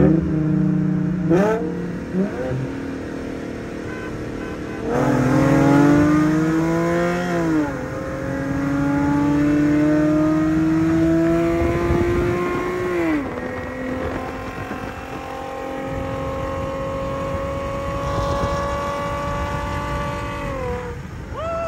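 Infiniti G37x's 3.7-litre V6, fitted with aftermarket intakes and exhaust, pulling at full throttle in a roll race from about 40 mph. The revs climb in three long rising sweeps, and each ends as the revs fall with an upshift.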